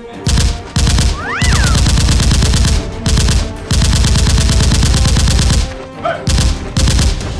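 Bursts of rapid automatic gunfire, a dubbed firearm sound effect, about seven volleys of varying length, the longest about two seconds, over background music.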